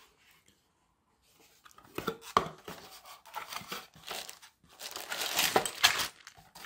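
A cardboard kit box being opened and its contents handled: a few light knocks and scrapes, then from about the middle the crinkling rustle of a clear plastic bag of parts being lifted out.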